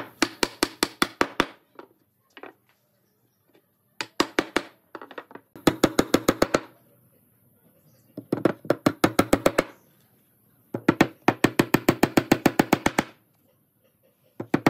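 A hammer driving small nails into a wooden frame: runs of rapid, even taps, about seven or eight a second, broken by short pauses between nails.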